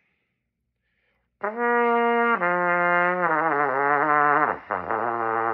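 Trumpet playing sustained notes that start about a second and a half in and step downward into the low register, the lower notes wavering in pitch.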